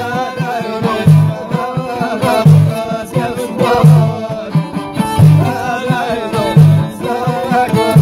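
Amazigh folk music: two frame drums beat a steady rhythm, a deep stroke about every second and a half with lighter taps between, under a bowed violin and men singing.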